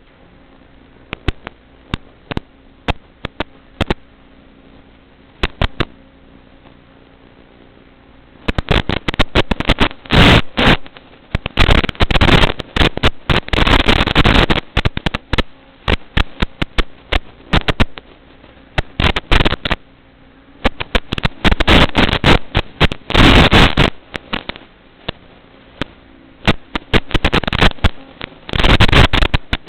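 Irregular clicks over a faint steady hum, then from about eight seconds in, loud bursts of crackling static that come and go every second or two.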